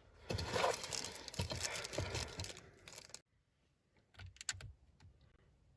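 Crinkling and rustling of plastic as small parts are handled to fit the bolts. It stops abruptly about three seconds in and is followed by a few light clicks.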